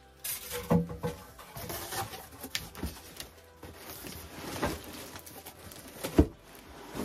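Irregular clicks, knocks and rattles of baby dresser parts and screws being handled, with a sharper knock about six seconds in.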